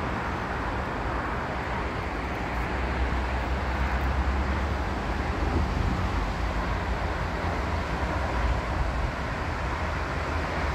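Steady outdoor background rumble, heaviest in the low end, with no distinct events.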